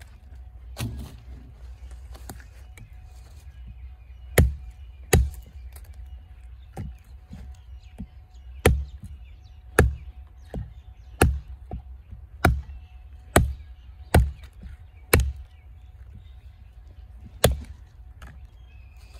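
Large Iron Mistress replica bowie knife chopping into a tree branch laid on a stump: about a dozen sharp chops, mostly about a second apart, after a quieter start.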